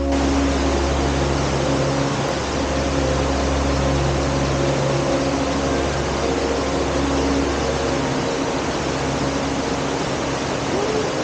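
Mountain stream rushing over rocks, a steady hiss, with soft background music underneath.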